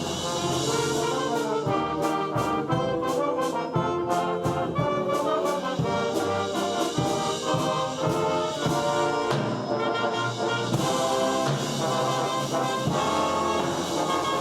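Concert band playing, with brass to the fore. Short, quick notes and percussion strikes come in the first few seconds, then held chords.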